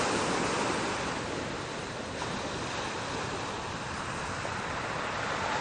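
Ocean surf on a beach: a steady rush of breaking waves, swelling a little near the end, with wind on the microphone.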